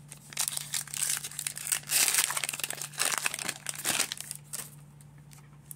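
Plastic wrapper of a Donruss trading card pack crinkling as it is torn open by hand, a run of crackling bursts that stops about four and a half seconds in.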